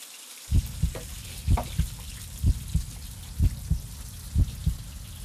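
Dumplings frying in a pan with a faint sizzle as the steaming water cooks off. From about half a second in, a heartbeat-like double thump repeats about once a second, louder than the sizzle.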